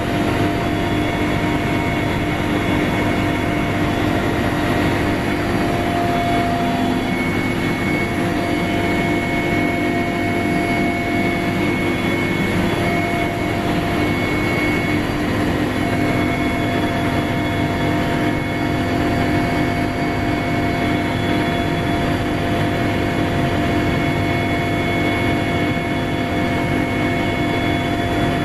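Helicopter engines and rotor heard from inside the cabin: a loud, steady drone with a few constant whining tones over it.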